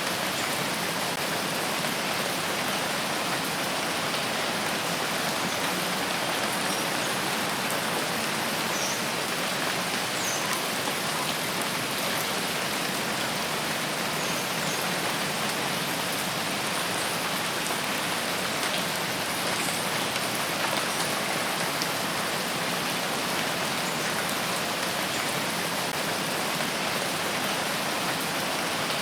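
Steady rainfall, a continuous even hiss of rain with faint scattered drop ticks.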